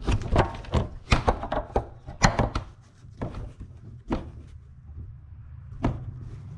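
Plastic front bumper cover of a Kia Optima knocking and clicking as it is pushed and worked against its retaining clips, a quick run of knocks at first, then single knocks about three, four and six seconds in, over a low steady hum.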